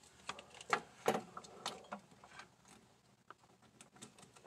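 An electric wax warmer's power cord being unwound, handled and plugged into a wall outlet: a few light clicks and knocks, the clearest about a second in, with quiet between.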